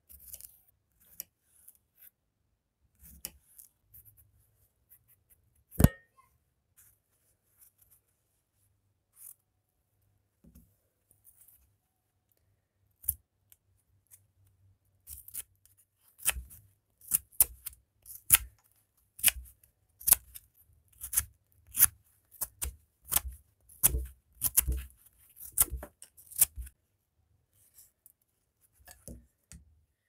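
Folding pocket knife blade shaving a wooden stick: a run of quick, sharp cutting strokes, about two a second, from about halfway through until a few seconds before the end. Before that, faint scattered cuts into a cucumber and one sharp knock about six seconds in.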